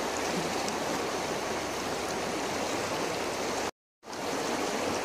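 Steady rush of flowing river water, cutting out to dead silence for a moment about three and a half seconds in before resuming.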